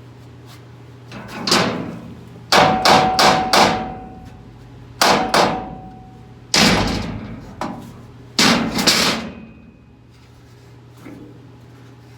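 Thick steel plate clanging and banging as it is worked into place, in a string of heavy metal impacts. A quick run of about four comes about three seconds in, then single blows, and some strikes leave a brief ringing tone.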